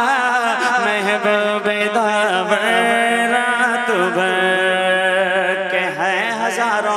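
Male voice singing a long, wordless melismatic line of an Urdu naat, the pitch gliding and ornamenting continuously over a steady held low drone.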